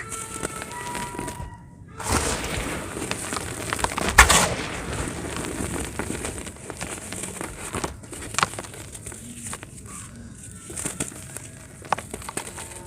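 Dry cement chunks being crumbled and crushed, a dense crackling and crunching. A sharper, louder crunch comes about four seconds in, with a brief drop-out shortly before it.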